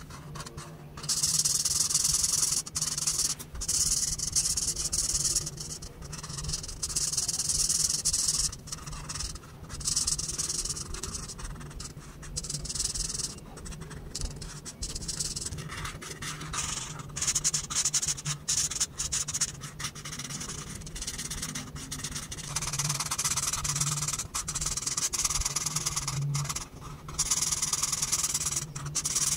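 Felt-tip marker rubbing across paper in colouring strokes: repeated hissy scratches a second or two long with short pauses between them, softer through the middle stretch.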